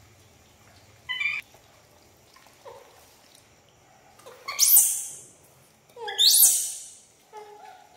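Young pet monkey squealing: a short cry about a second in, then two loud, high shrieks that fall in pitch, about four and a half and six seconds in.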